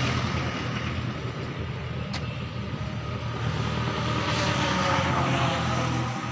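Road traffic passing: a steady engine hum with a vehicle swelling louder and fading away between about four and six seconds in, and a single sharp click about two seconds in.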